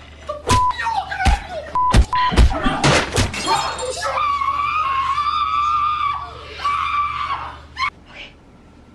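Offscreen fight: a run of crashes and bangs like things being smashed, with a few short steady beeps among them, then a long wavering scream of about three seconds.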